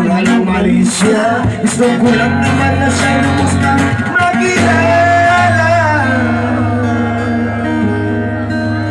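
Live song with a singer and a strummed acoustic guitar. The voice holds a long, wavering note around the middle, then the guitar chord rings on under a softer vocal.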